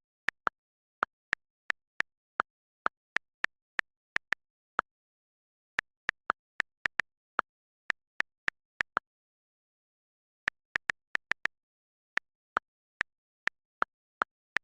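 A series of short, sharp pops coming irregularly, about two or three a second, each at a slightly different pitch, with brief pauses about five seconds in and again about nine seconds in.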